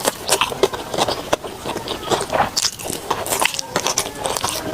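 Close-miked eating sounds: a person biting and chewing sticky rice, a quick irregular run of small mouth clicks.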